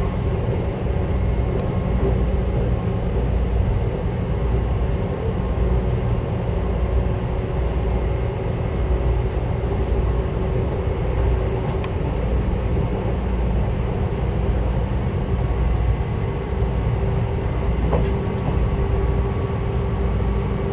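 Seibu 10000 series limited-express train running at steady speed, heard from inside the car above the line breaker: a continuous low rumble of wheels and running gear with a steady hum. The hum grows a little stronger near the end.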